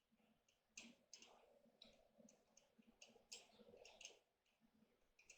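Near silence, with faint, irregular soft clicks.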